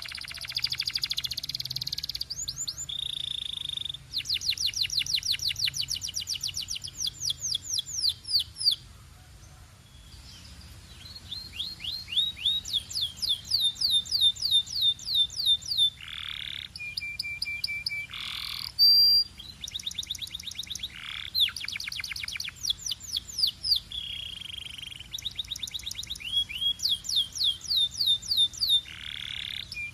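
A Belgian canary singing: long, rapid trills of quickly repeated falling notes, broken by short held whistled tones. There is a brief lull about ten seconds in.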